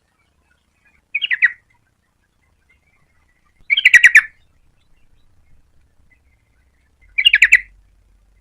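Yellow-vented bulbul singing: three short phrases of quick notes, a few seconds apart.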